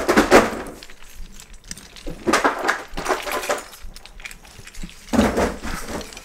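Loose plastic LEGO bricks clattering and rattling together in three bursts, about two to three seconds apart.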